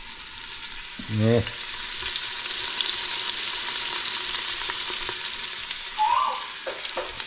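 Seasoned squirrel pieces sizzling as they sear in hot oil in an Instant Pot's steel inner pot on sauté. The sizzle grows louder over the first couple of seconds as more whole squirrels are laid in.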